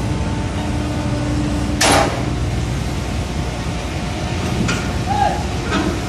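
Cargo crane machinery running with a steady, loud drone as a crawler excavator is hoisted on the spreader beam. A short loud hiss comes about two seconds in, and two short rising-and-falling calls come near the end.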